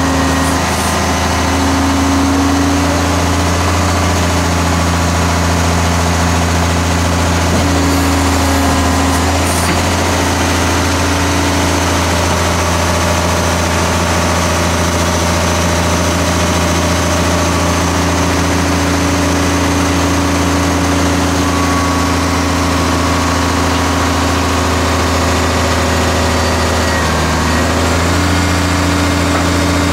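Diesel engine of an older McNeilus garbage truck idling steadily up close. A higher hum above the idle shifts a few times.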